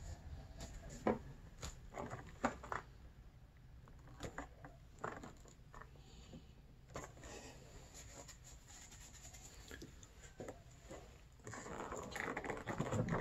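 Wires and plastic electrical connectors of a snowmobile handlebar harness being handled: scattered light clicks and knocks, with a busier stretch of rustling near the end.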